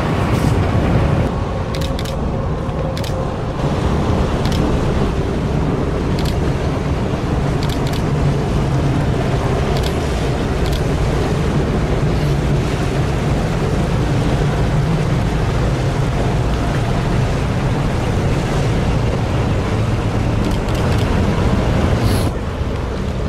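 Steady low drone of a boat's engines, with wind buffeting the microphone and water rushing.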